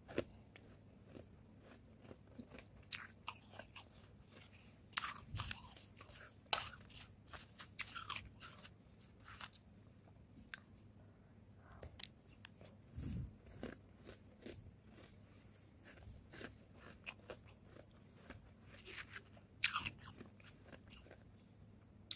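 Powdery freezer frost being bitten and chewed close to the microphone: irregular clusters of crisp, sharp crunches, thickest in the first half and again near the end.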